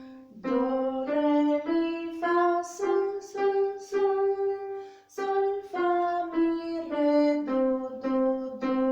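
A scale of clear, held notes climbs step by step from middle C (Do) up five notes to Sol. It holds the top note, then steps back down to Do, each note lasting about half a second.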